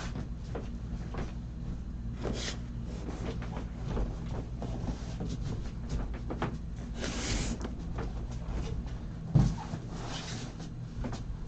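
Cardboard product boxes being moved around and restacked on a table: scattered knocks and taps, a few sliding scrapes of cardboard, and a heavier thump about nine seconds in, over a steady low hum.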